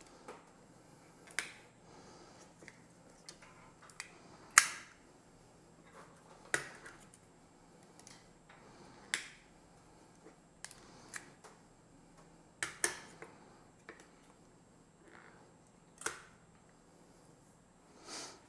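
Hard-boiled eggs being cracked and peeled by hand: a series of sharp, irregular clicks and cracks of breaking eggshell, about one every second or two, the loudest about four and a half seconds in.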